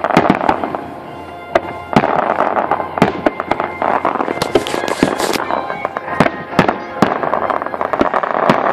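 Aerial firework shells bursting: a string of sharp bangs, about one or two a second, over continuous crackling.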